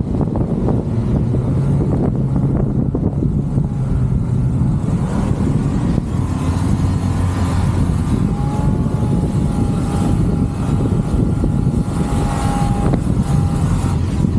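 Mitsubishi Pajero 4x4 being driven, its engine running steadily under load with a low drone over road and wind noise; a faint steady higher tone joins in about halfway through.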